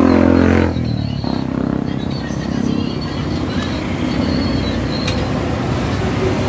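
An engine running: a steady pitched drone stops about half a second in and gives way to a rougher, uneven rumble.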